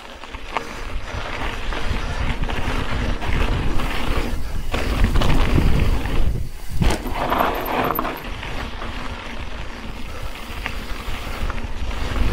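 Mountain bike riding fast down a dirt and gravel trail: wind buffeting the camera microphone over the rumble of tyres on loose dirt, with short rattles and knocks from the bike over bumps. The noise drops briefly about six and a half seconds in, then picks up again.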